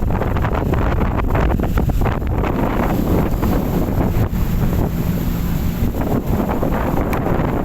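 Wind buffeting the microphone aboard a ship at sea: a loud, steady rumble with the rush of the sea beneath it.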